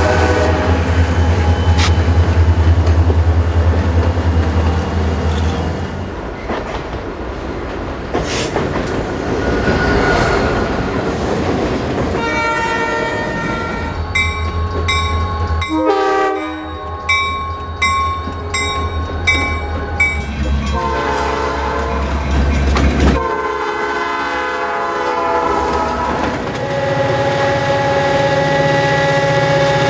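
Diesel freight locomotives passing: a heavy engine rumble, then a stretch of wheel and rail noise, then rapid, evenly repeated ringing strokes about twice a second, and several air horn blasts, the last one held long.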